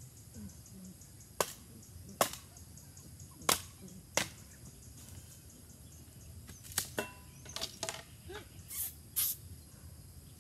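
Open wood fire crackling, with about ten sharp pops at irregular intervals over a steady high insect drone.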